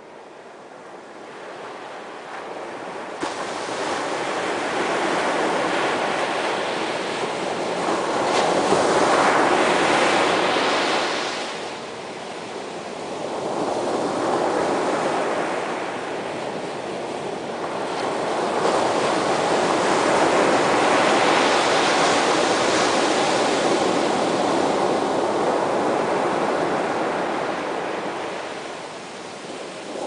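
Small waves breaking and washing up a sandy beach. The surf rises and falls in long, slow swells. It fades in from quiet over the first few seconds.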